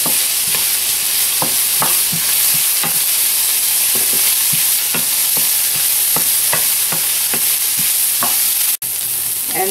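Chopped onion, carrot and cucumber sizzling in sesame oil in a frying pan, a steady hiss. A cooking utensil scrapes and knocks against the pan about once a second as the vegetables are stirred until the onion turns clear. The sound cuts out for an instant near the end.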